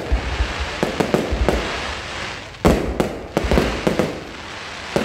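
Fireworks bursting overhead in a rapid string of sharp bangs with crackling between them, the loudest bang about halfway through.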